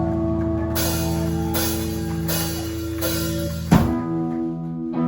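Live rock band playing: electric guitars hold ringing chords while crash cymbals are struck about four times, then a hard hit about three-quarters of the way in brings in a new held chord.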